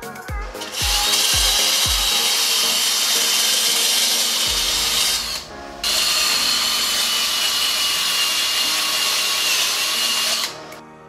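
Corded electric drill spinning a polishing attachment against a metal exhaust pipe: a loud, steady high whine with hiss that starts about a second in, stops briefly around the middle, then runs again until shortly before the end. Background music with a thumping beat plays at the start.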